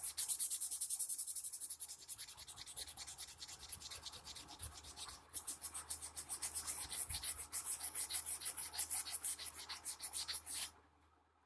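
Silicon carbide sandpaper rubbed quickly back and forth over the side of a ceramic mug, a fast, even, scratchy sanding that is stripping off its glossy heat-transfer photo print. The rubbing stops suddenly near the end.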